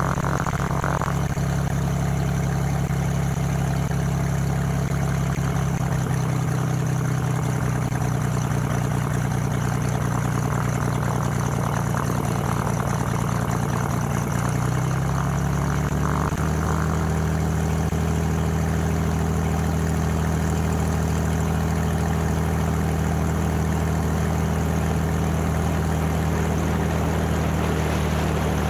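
Cessna 205's six-cylinder piston engine and propeller running at low power on the ground, a steady drone. About halfway through, the engine note steps up in pitch as power is added and the aircraft taxis.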